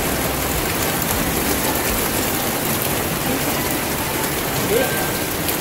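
Rain falling steadily, an even continuous hiss.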